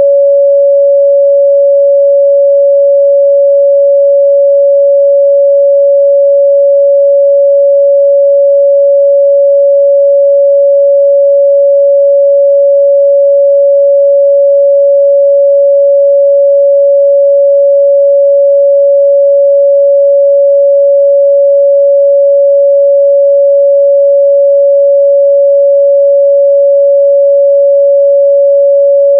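A steady pure 562 Hz sine-wave test tone, held loud and unbroken at one pitch.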